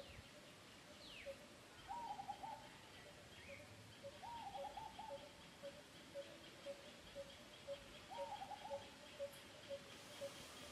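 Faint birdsong: a low pip repeated about twice a second throughout, and three times a short phrase of four or five quick, higher notes.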